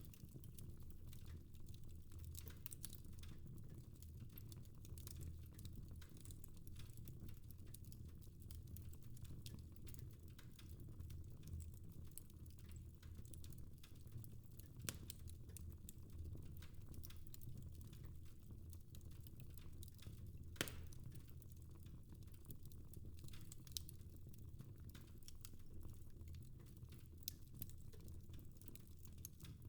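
Fire crackling in a fireplace: a steady stream of faint irregular snaps and ticks over a low rumble, with a louder single pop about halfway through and another about two-thirds of the way through.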